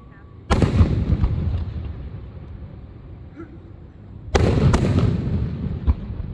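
Aerial fireworks exploding: two loud shell bursts about four seconds apart, each followed by a fading rumble. A quick second crack follows the later burst, and a short sharp pop comes near the end.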